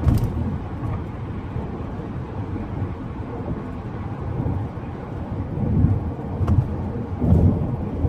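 Road noise heard inside a moving car's cabin: a low tyre rumble over uneven construction-zone pavement, with heavier thumps as the car hits bumps near the start and twice near the end.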